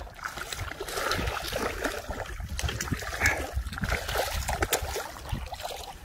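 Shallow bay water splashing and sloshing in short, irregular splashes, over a low steady rumble.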